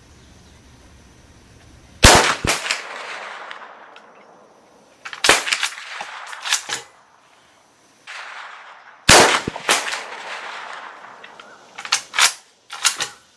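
Mosin-Nagant M91/30 bolt-action rifle firing 7.62×54R: loud shots a few seconds apart, each ringing off into echo. Between the shots comes the clacking of the bolt being cycled.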